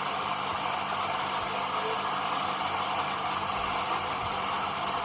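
Steady rushing noise of floodwater running through a street, with a low steady hum underneath.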